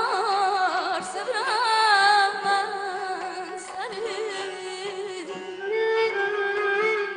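A female singer performing Azerbaijani mugham, with fast ornamented trills and pitch bends, over a traditional ensemble. Near the end a steady note is held.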